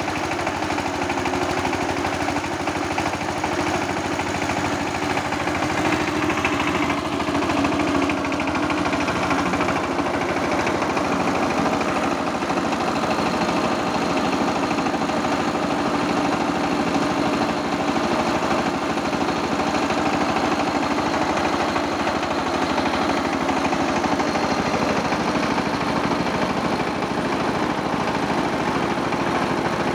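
Single-cylinder diesel engine of a two-wheel walking tractor running steadily, belt-driving a rice huller as grain is milled.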